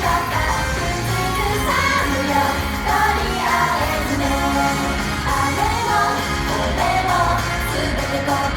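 Japanese pop song performed live on stage: singing over loud, continuous music with a steady bass line, heard through the theatre's sound system.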